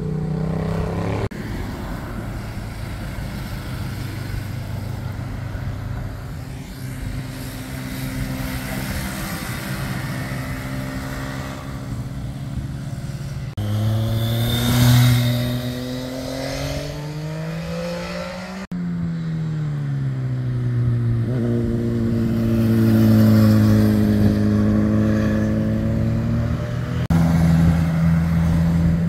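Cars and motorcycles driving past one after another through a hairpin bend, each engine's note rising and falling in pitch as it throttles through the curve and pulls away. The sound changes abruptly several times as one passing vehicle is cut to the next.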